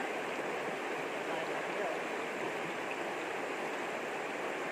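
A shallow, rocky river rushing steadily over stones and through small rapids.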